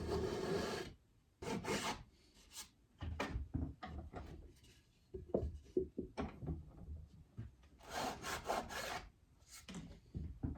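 Hand saw cutting through the elm box's sides to separate the lid from the body, in short irregular strokes, with a quick run of strokes near the end.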